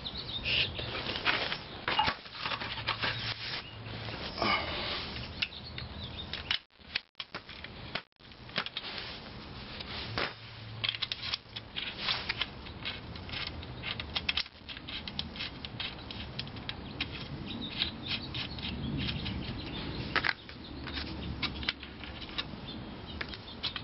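Screwdriver working at the rear cover of a Load Boss alternator: irregular metallic clicks, scrapes and rattles as the cover is pried and worked loose.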